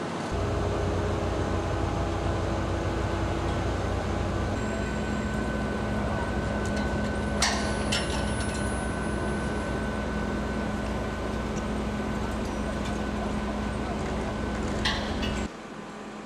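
Heavy construction machinery's engine running steadily: an even low drone with a thin steady tone over it. A couple of sharp knocks come about halfway through, and the sound cuts off abruptly near the end.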